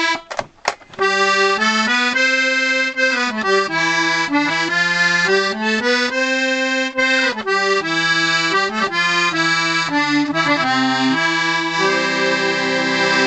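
Freshly restored and tuned 1930s Pancotti accordion, treble side, playing sustained chords and notes that change every second or so, with the low reed brought in alongside the musette reeds. A short note sounds at the start, then the playing runs steadily from about a second in and stops at the end.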